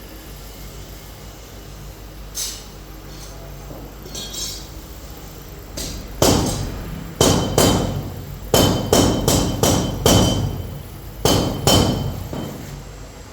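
Hammer striking metal: two light taps, then about a dozen sharp blows in uneven groups, each with a short metallic ring.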